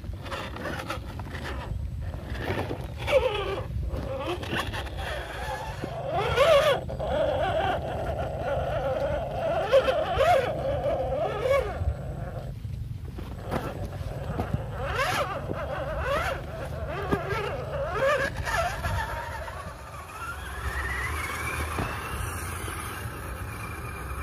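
The electric motor of an RGT EX86100 V2 1/10-scale RC rock crawler whining, its pitch wavering up and down with the throttle, with sharp clacks of tyres and chassis on rocks over a steady low rumble. Near the end the whine climbs in one long rise.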